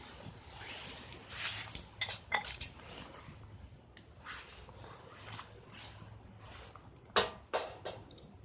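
Metal cooking gear and utensils being handled, clinking and clattering irregularly, with two sharp knocks about seven seconds in.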